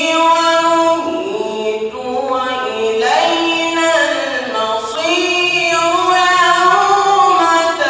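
A solo voice reciting the Quran in the melodic tajweed style, holding long ornamented notes that glide up and down in pitch, with a short break about two seconds in.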